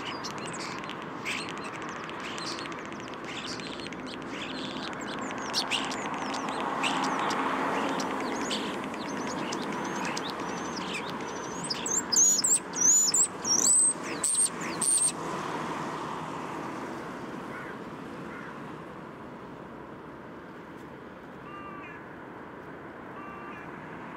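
Common starling singing: a rapid jumble of clicks, rattles and short whistles, loudest in a run of gliding high whistles about halfway through, after which only a few faint chirps remain. Steady city traffic noise runs underneath.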